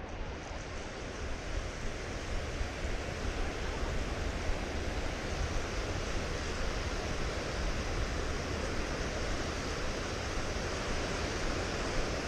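Ocean surf washing up a sandy beach: a steady hiss of waves.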